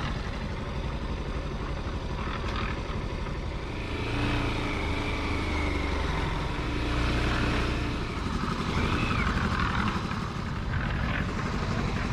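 A vehicle engine running steadily, with a stronger engine note coming in for a few seconds about four seconds in.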